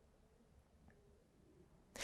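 Near silence: a pause between spoken phrases, faint room tone.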